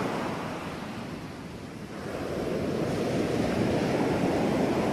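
Ocean surf: a steady wash of waves that eases off after the start and swells back up about two seconds in.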